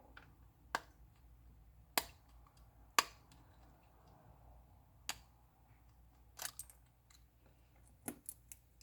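Small, sharp clicks and taps of repair tools on a smartphone's metal and plastic internals during disassembly, at irregular intervals with a few close together near the end.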